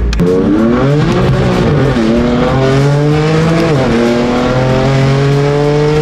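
BMW F80 M4's twin-turbo straight-six accelerating hard, heard from inside the cabin. The engine note climbs steadily and drops back at each quick upshift, about every two seconds, as the car pulls through the gears.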